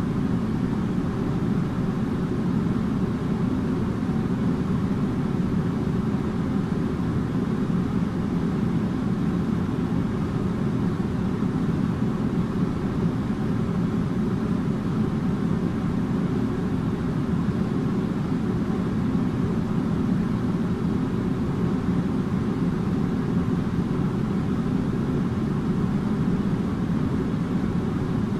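Air conditioner running with a steady, even hum and whoosh, strongest in the low range, with a faint steady tone above it.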